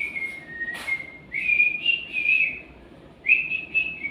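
Pet cockatiel whistling a repeated tune of short phrases, each with a couple of small steps in pitch. There is a single sharp click a little under a second in.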